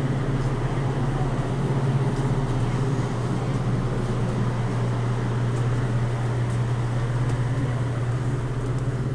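Steady low mechanical hum, like an engine or motor running, holding the same level throughout.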